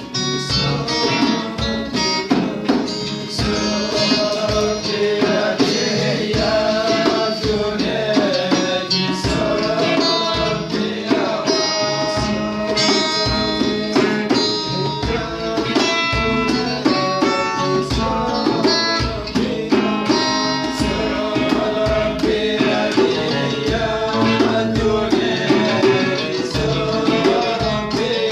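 Ahidous, Amazigh folk song, in a modern arrangement: two acoustic guitars and a hand-played djembe accompany a male singer, with the drum keeping a steady beat.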